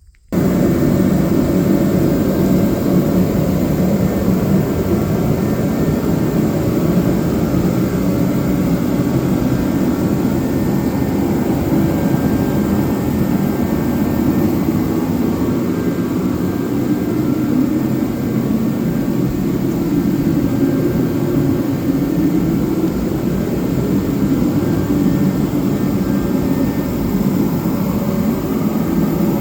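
Loud, steady running of an engine or motor-driven machine, starting abruptly and holding an even level without a break.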